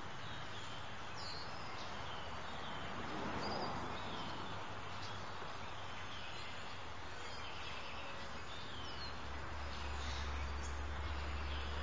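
Quiet outdoor ambience with small birds chirping off and on, in short high sweeping notes. A low rumble comes in about three-quarters of the way through.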